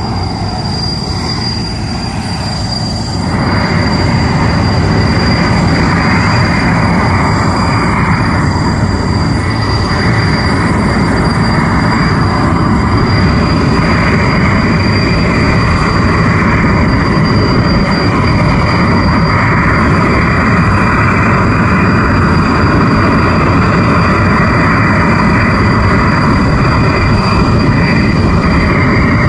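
Helicopter running: a loud, steady mix of engine and rotor noise with a thin, constant high whine. It grows louder and fuller about three seconds in, then holds steady.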